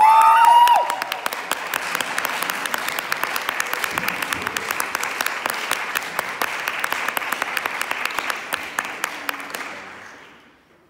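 Audience applauding a saxophone and piano duo as they walk on stage, opened by one loud, high rising cheer. The clapping goes on evenly and fades out about ten seconds in.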